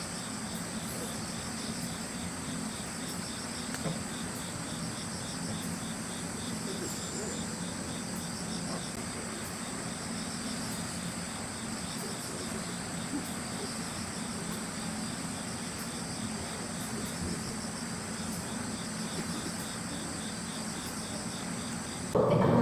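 Insects calling in grass: a steady high-pitched trill with a pulsed call repeating several times a second, over a low steady hum.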